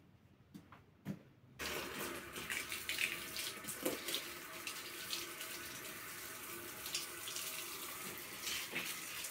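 Water spraying from a garden hose over potted plants and their leaves. It starts about a second and a half in, after a couple of faint knocks, and runs steadily.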